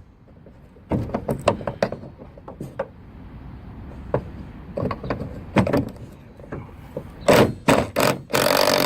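Hand tools clicking, knocking and scraping on the fender marker light's mounting bolt as it is undone while vice grips hold the bolt, in irregular clusters of sharp knocks that grow louder near the end, followed by a brief loud scrape.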